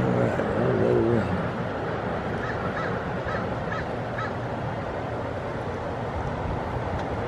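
American crows cawing: a call about a second in, then a run of about six short caws in the middle, over steady background noise.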